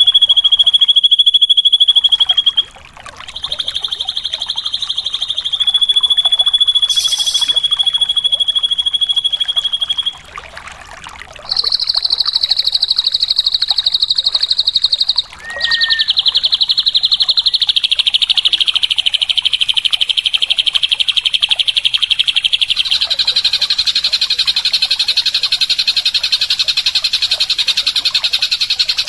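Drongo song: long, rapid, buzzy trills, each held for several seconds, with short breaks about three and ten seconds in. The later trills are pitched higher.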